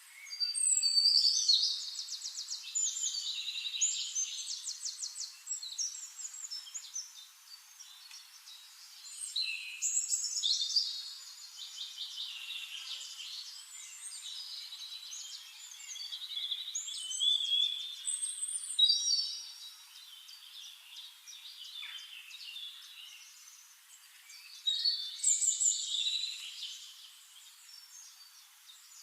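Songbird singing in long phrases of rapid trills and warbles, a new phrase starting roughly every eight seconds, with quieter chirps between them.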